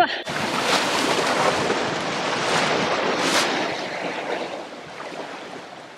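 Sea surf washing against shore rocks, with wind on the microphone: a steady rush with a few louder surges, fading away over the last couple of seconds.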